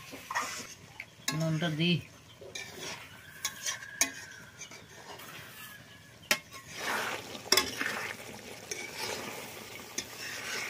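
A metal spatula stirring and scraping goat meat curry in an aluminium kadai, with sharp clinks against the pan and a sizzle from the cooking food. A short wavering call sounds about a second and a half in, and water is poured into the pan about two-thirds of the way through.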